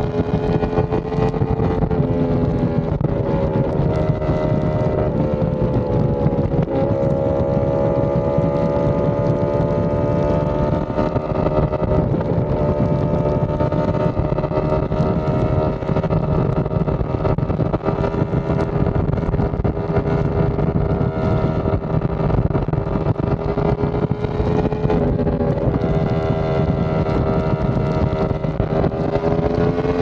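Yamaha R1M's inline-four running through an SC Project exhaust while riding at fairly steady revs, the pitch dipping and climbing back about a fifth of the way in and changing again near the end.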